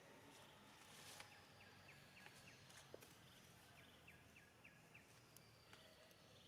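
Faint outdoor ambience, nearly silent, with a quiet, regular high chirping about four times a second and a few soft ticks.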